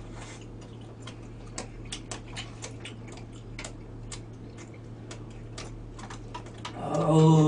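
Metal spoons and chopsticks clicking against ceramic bowls and plates as people eat: irregular sharp clicks, a few a second, over a steady low hum. Near the end a man lets out a long, drawn-out "ah-oo".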